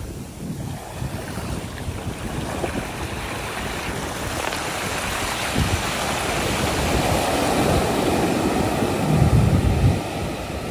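Small ocean waves breaking and washing up a sandy beach, a steady rush of surf and foam that swells to its loudest near the end.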